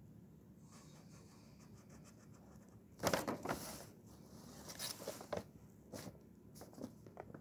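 Marker scratching across paper in quick strokes, the loudest burst about three seconds in, followed by several shorter scratches.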